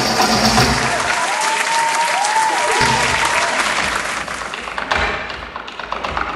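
Audience applauding, with a wavering cheer between about one and three seconds in; the applause thins out near the end.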